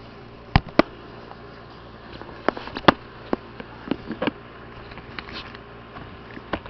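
Scattered sharp clicks and knocks from hard plastic being handled, a few in quick pairs, over a faint steady background hum.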